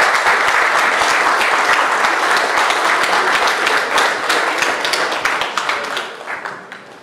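Audience applauding: dense clapping that thins out and fades about six seconds in.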